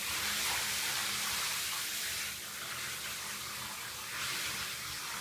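Water running steadily from a tap during a cat's bath.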